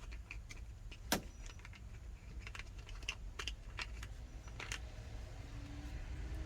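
Scattered small clicks and clinks of parts and hand tools being handled during wiring work, the sharpest click about a second in, over a steady low hum.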